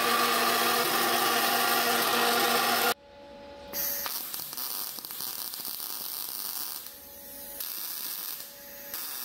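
A King band saw runs with a steady motor hum while its blade cuts a piece of thin sheet steel, stopping abruptly about 3 seconds in. Then a MIG welder crackles and hisses in short runs of one to three seconds, tacking a steel patch into the pickup's bed.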